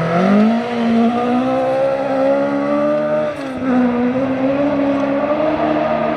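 Classic Ford Escort rally car engine running hard at high revs. The revs climb at first, dip briefly about three seconds in, then pick up again.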